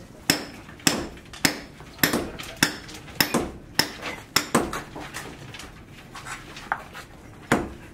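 Repeated hammer blows, about two a second, for the first four or five seconds, then a pause and one more strike near the end.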